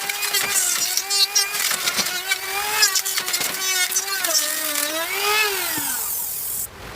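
Electric power tool motor whining as it cuts into wood, its pitch dipping and wavering under load, with scraping and knocking from the cutter. Near the end the pitch sags, and then the sound drops away sharply.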